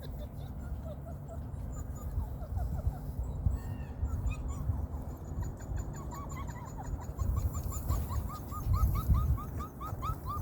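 Puppy whining in a run of short, rising squeaks, about four a second, growing more insistent over the last few seconds, over a steady low outdoor rumble.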